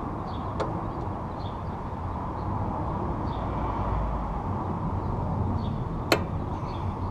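Steady outdoor background rumble with faint high chirps now and then, and a small click near the start and one sharp metal click about six seconds in as a motorcycle footpeg's mounting pin and retaining clip are handled and fitted.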